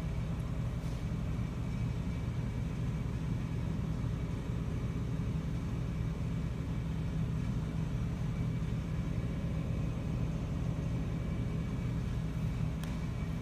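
A steady low rumbling hum that does not change, with a faint click near the end.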